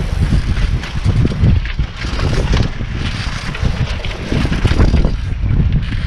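Wind buffeting the microphone and tyre rumble from a BMX bike being ridden at speed.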